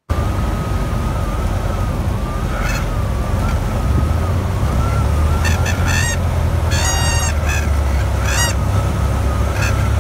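Light single-engine propeller plane's engine and propeller droning low in the cabin on a landing approach, with the stall warning horn sounding: a thin wavering tone that swells into several short, loud honks from a few seconds in. The horn signals the wing is near stall speed as the plane slows in the landing flare.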